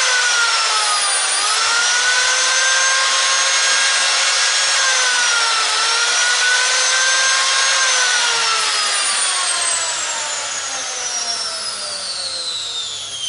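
Ferm 125 angle grinder's brushed motor, running without its gearbox on new brushes and a re-machined armature, spinning at full speed with a high whine and a light rustle. Its pitch dips briefly twice, then falls steadily over the last few seconds as it winds down. The smooth run shows that the restored armature and brushes work.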